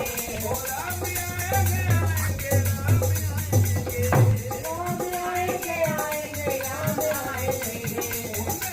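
Background music: a melody over a steady bass line, with a quick, even percussion beat.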